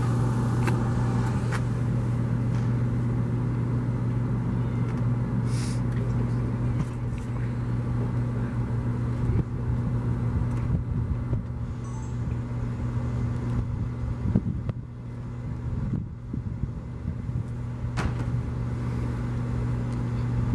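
Engine running at a steady idle: an unchanging low hum, with a few faint clicks on top.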